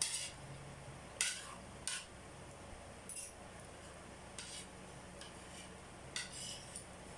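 Cutlery clinking and scraping on a dish, in about six short, sharp strokes spread a second or so apart.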